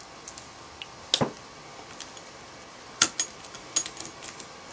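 Internal parts of a Version 3 airsoft gearbox being handled and set down: a few sharp clicks and clinks, the loudest about a second in and others around three and four seconds in.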